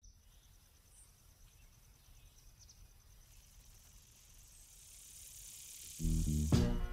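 Faint insects chirring, a rapid high-pitched pulsing trill that stops after about three seconds, over a low outdoor rumble. A hiss swells, and loud music cuts in sharply about six seconds in.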